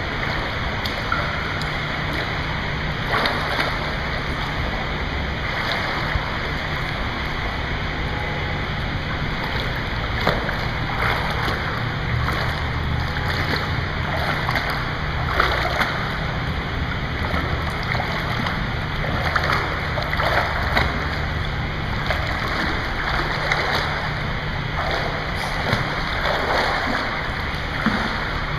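Pool water sloshing and splashing as a person wades and swims through it, with many short irregular splashes over a steady low hum.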